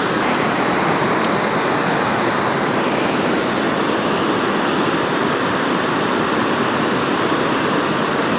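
Steady, loud rush of water pouring through a dam spillway.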